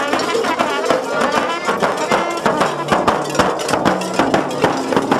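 Trumpet and accordion playing a folk tune together, with a large frame drum struck in quick, dense beats throughout.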